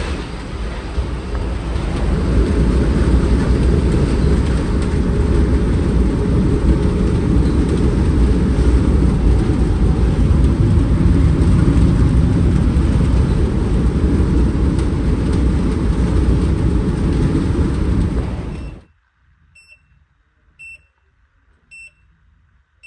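Delivery truck driving, heard from inside the cab: a steady loud engine and road rumble that cuts off abruptly about nineteen seconds in. A short high electronic beep then repeats about once a second.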